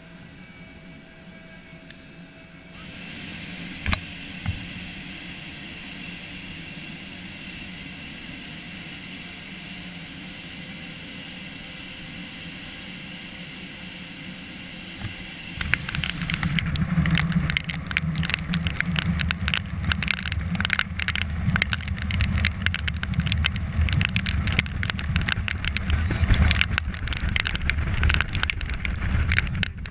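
Steady hiss and hum of the fast attack craft running under way, with two brief clicks about four seconds in. From about halfway through, heavy wind buffeting on the camera microphone takes over: a loud, irregular rumble and crackle as the boat runs fast into the wind.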